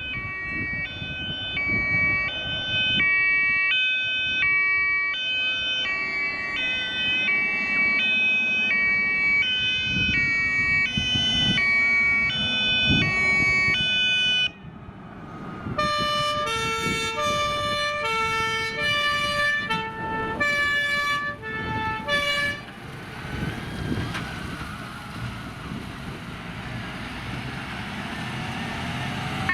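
German two-tone emergency horns (Martinshorn) on fire engines, each alternating steadily between a high and a low tone. About halfway there is a sudden change to a second horn at different pitches, which stops after several more seconds. Vehicle and road noise follows, with a faint rising siren tone near the end.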